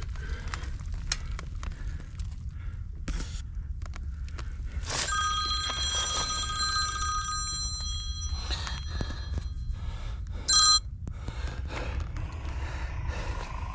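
Mobile phone ringtone: a chord of steady electronic tones held for about two and a half seconds, then a short, loud burst of the same tones a few seconds later. Scattered clicks and rustles sound over a steady low rumble.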